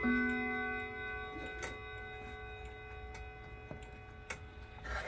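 Howard Miller regulator wall clock chiming. A last chime note struck at the start rings on and slowly fades, set off by the minute hand being turned round by hand. The clock ticks steadily underneath.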